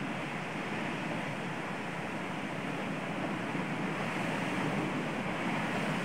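Sea surf breaking against a rocky shore: a steady wash of waves that grows a little louder in the second half.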